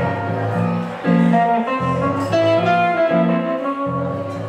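Live blues instrumental intro: an archtop electric guitar plays a picked single-note melody over a low bass line that repeats about twice a second.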